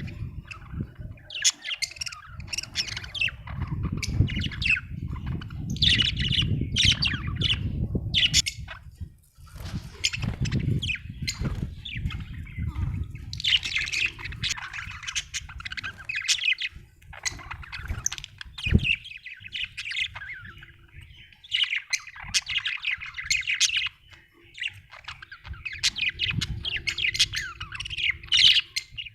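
Budgerigars chattering and chirping: many quick overlapping chirps and squawks with brief pauses, over a low rumble.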